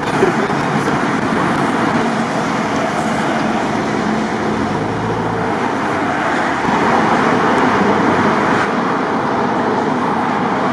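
Steady road traffic noise: cars passing on a road, their tyres and engines blending into one continuous rush that swells slightly about two-thirds of the way through.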